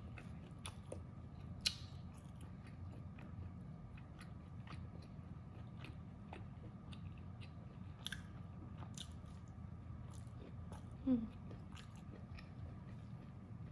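Chewing and biting roast duck, with scattered sharp clicks and crunches; a short pitched sound about eleven seconds in.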